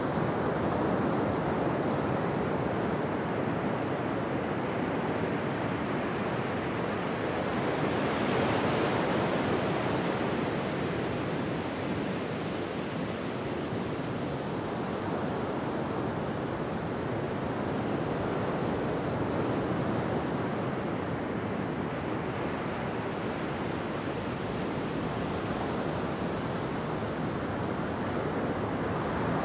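Steady wind blowing over the microphone, with a stronger gust about eight seconds in.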